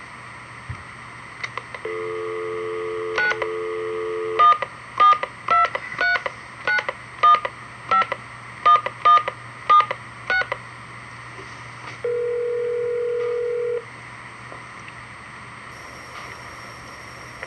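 Telephone line: a steady dial tone, then about eleven touch-tone keypad digits dialled in quick succession, then a single ring of the ringback tone as the call goes through.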